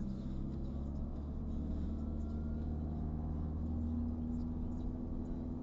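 Car running at a steady road speed, heard from inside the cabin: a low engine hum with tyre and road noise.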